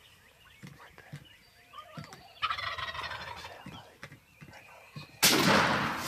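Wild turkey gobbling, a rapid rattling call about two and a half seconds in. About five seconds in, a single loud gunshot rings out and echoes away.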